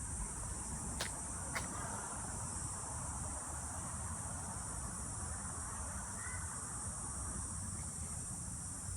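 Steady high-pitched insect drone, with two faint clicks about a second in.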